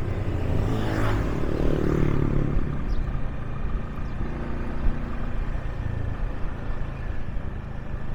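Vehicle engine running steadily with road and wind noise while riding. About a second in, another vehicle passes close by, its engine pitch falling as it goes.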